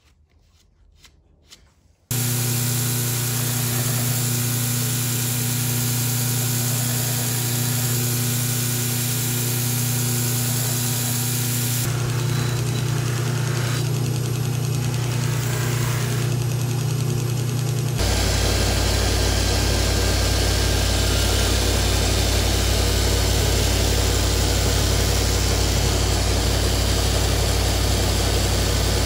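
Bench buffer motor starting about two seconds in and running steadily with a strong hum while a blade is polished on the wheel. About two-thirds of the way through it gives way to a small belt grinder running with a deeper hum as the knife edge is honed on the belt.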